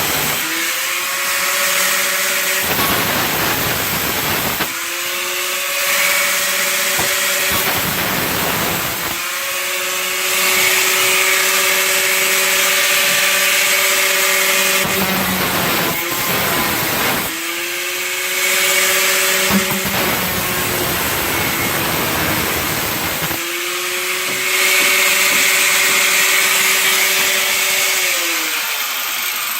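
A power tool cutting sheet metal for a patch panel in repeated runs: a steady motor whine alternates about five times with a harsh grinding rush while the tool bites into the metal. The motor winds down near the end.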